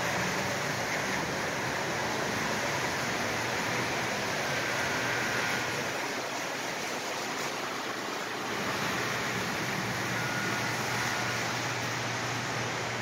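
O scale model reefer cars rolling past on two-rail track: a steady rolling hiss, with a faint brief squeal twice.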